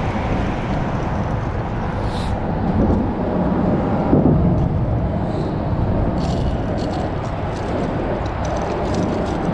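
Steady rumble of road traffic on the bridge overhead, with a few faint light ticks in the second half.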